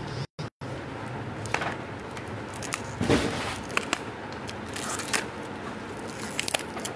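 Packaging of a cream being opened by hand: crackling, rustling and scraping with scattered small clicks, and a louder rustle about three seconds in. The sound cuts out twice for a moment near the start.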